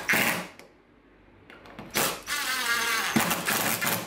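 Cordless drill-driver whining as it drives wood screws into a small wooden block: a short burst at the start, then a longer run from about two seconds in, its pitch rising as the motor spins up.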